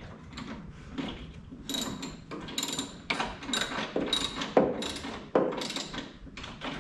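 Hand ratchet with a 13 mm socket clicking in short strokes, about two a second, as a bolt in the engine bay is turned, with light metallic clinks.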